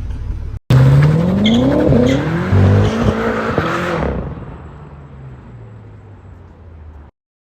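BMW M5 F10's twin-turbo V8 accelerating hard, its pitch climbing after an abrupt start under a second in, then fading away from about four seconds in until it cuts off suddenly near the end.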